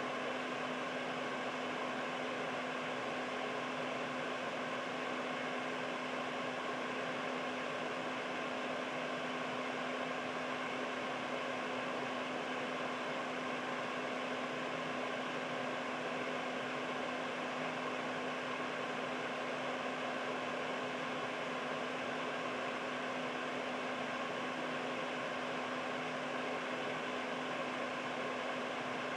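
Household air purifier running steadily: an even rush of air from its fan with a constant low hum underneath.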